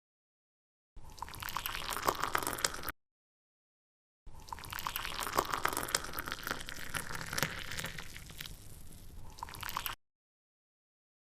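Wet, crackling liquid sounds of slime being handled, in two stretches: one of about two seconds, then one of about six seconds. Both cut off abruptly.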